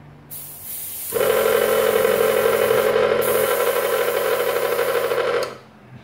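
Hao Sheng HS217 airbrush compressor: a hiss of air starts just after the beginning, then about a second in the compressor runs with a loud, steady buzzing drone over the hiss, far from silent, and both cut off suddenly about half a second before the end.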